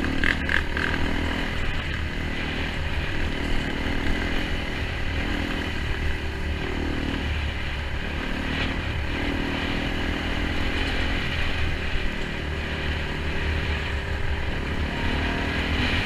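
Enduro motorcycle engine running under way, its pitch rising and falling as the throttle changes.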